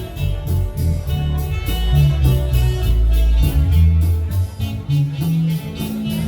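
Marimba band playing a lively tune, with bass notes underneath and a steady percussive beat.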